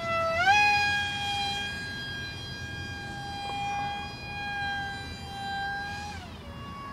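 Motor and propeller of a scratch-built RC foam airplane whining in flight. The pitch climbs about half a second in, holds steady, then falls away near the end.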